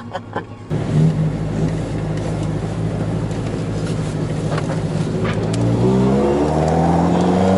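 Volkswagen Scirocco Mk1's four-cylinder engine heard from inside the cabin, running steadily at low revs, then revving up in rising sweeps as the car accelerates away, starting about six seconds in. A brief moment of music at the very start, cut off abruptly.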